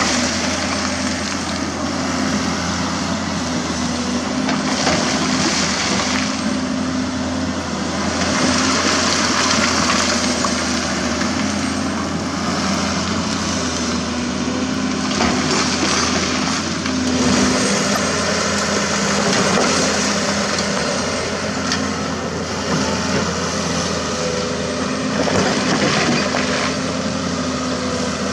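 Komatsu PC200-6 hydraulic excavator's diesel engine running steadily under working load. Over it come repeated surges of grinding and crunching as the steel bucket digs and scrapes through broken concrete rubble.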